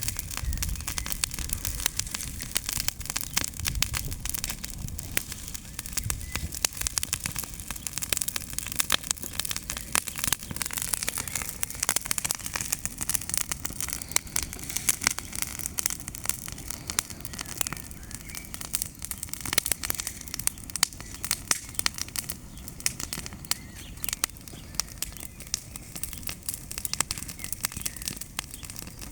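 Bonfire of dry leaves and branches crackling, with dense, irregular sharp pops and snaps throughout.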